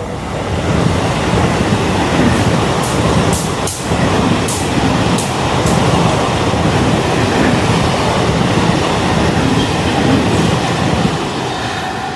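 Express passenger train passing at speed: a loud, steady rumble of wheels on rails that builds in the first second, with a run of sharp clacks from about two to six seconds in.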